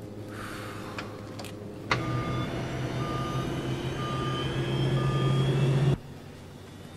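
Jumbo jet's engines starting up: a steady low hum with a whine that slowly rises in pitch, while an electronic beep sounds four times about once a second. Everything cuts off suddenly near the end.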